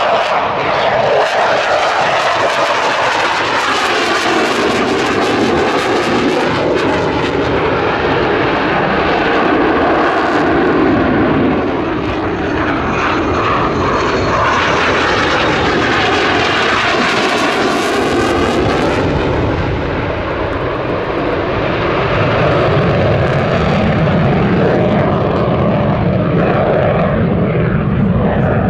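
Dassault Rafale C's twin Snecma M88 turbofan jet engines, a continuous loud roar as the fighter flies its display turns. The roar sweeps up and down in pitch as the jet passes, about halfway through. Near the end the jet pulls away with its afterburners lit.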